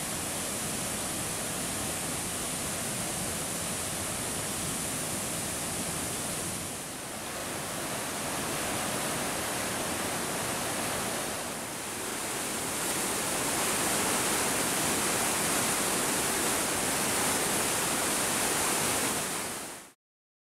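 Waterfall and river in spate after heavy rain: a steady rush of water, dipping briefly twice and growing a little louder over the rapids in the second half, then cutting off suddenly near the end.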